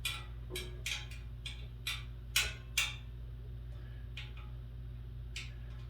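Sharp clicks, about two a second for three seconds, then two more spaced further apart, as a fastener on the desk frame is tightened with a hand tool, over a steady low hum.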